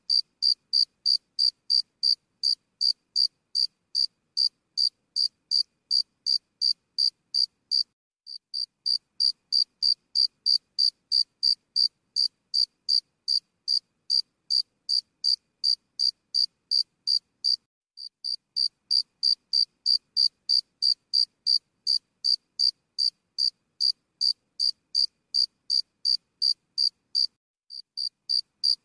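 Cricket chirping: short, high, thin chirps at an even pace of about three a second, pausing briefly about eight seconds in, again around eighteen seconds, and near the end.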